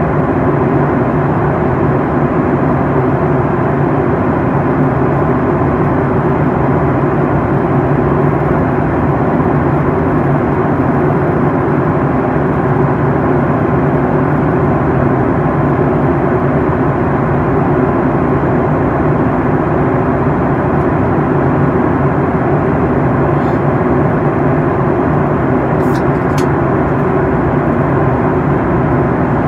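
Steady rush of airflow and jet engine noise inside a Boeing 737 MAX 8 in flight, with a constant low hum under it.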